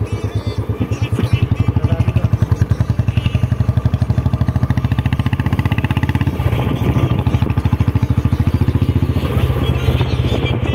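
Motorcycle engine running steadily on the move, with a fast, even pulsing beat.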